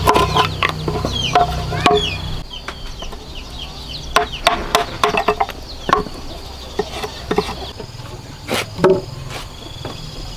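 A machete knife chopping into a green bamboo pole to cut a notch in its end: quick sharp strikes, several a second at first, then scattered ones. Chickens cluck throughout.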